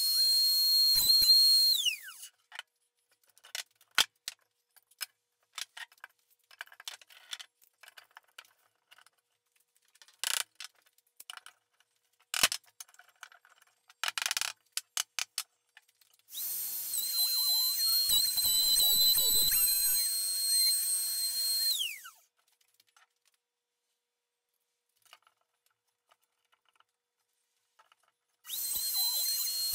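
Compact trim router cutting a rabbet along a plywood case edge with a rabbet bit: a steady high whine that is switched off about two seconds in and winds down. Scattered knocks and clicks follow as the router is set down and the case and clamps are handled. The router then runs for about six seconds, winds down again, and starts once more near the end.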